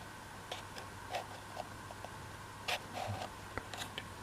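Light clicks and taps of thin laser-cut MDF pieces being handled and pressed into place, scattered through, the clearest a little before three seconds in, over a faint steady hum.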